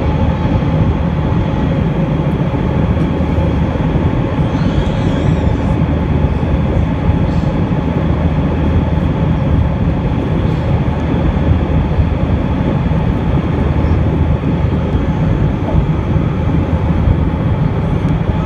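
Cabin noise inside an Airbus A320-232 climbing after takeoff: the steady drone of its IAE V2500 turbofan engines and rushing air past the fuselage, with a few faint steady hums.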